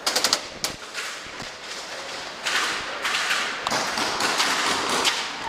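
Airsoft gun firing: a quick burst of sharp shots right at the start and a single shot just after. From about halfway in, a longer stretch of rapid shots and clatter follows.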